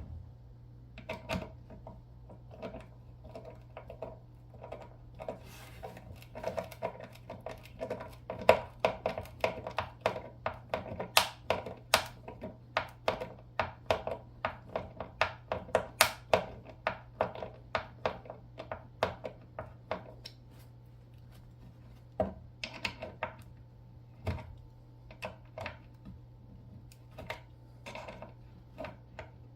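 Metal clicks and snaps of a pocket multitool being worked in the hands, its implements flicked open and snapped shut. The clicks come quick and dense through the middle, then thin out to scattered single clicks near the end.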